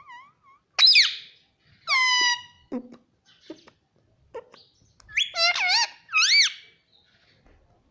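Indian ringneck parakeet calling with loud, high squawks. Two calls fall in pitch in the first couple of seconds, then a quick run of warbling calls that rise and fall comes about five seconds in.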